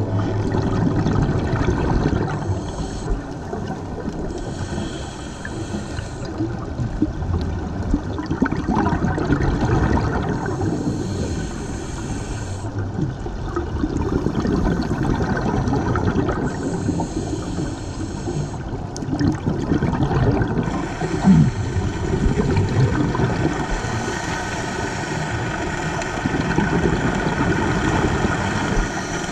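Underwater sound during a scuba dive: a steady muffled rumble, with a burst of bubbling every few seconds from the diver's exhaled breath leaving the regulator.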